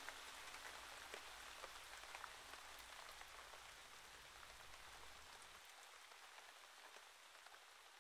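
Faint rain, an even hiss with scattered small drop ticks, slowly fading out.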